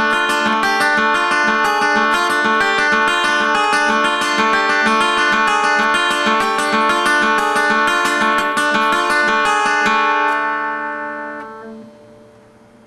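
Instrumental music: a fast, even run of repeated plucked-string notes. About ten seconds in the playing stops and the last notes ring out and fade away.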